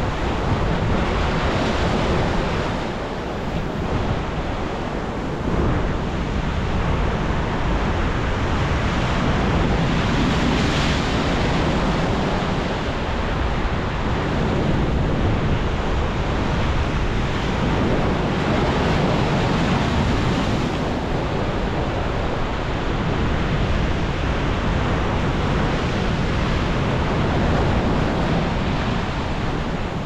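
Pacific surf breaking and washing into a rocky cove: a continuous roar of churning water that swells louder now and then as bigger waves break.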